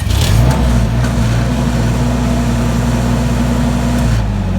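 Generac Guardian 15 kW standby generator engine, just started and running at a steady speed, now that the faulty governor driver has been replaced. Its note changes about four seconds in.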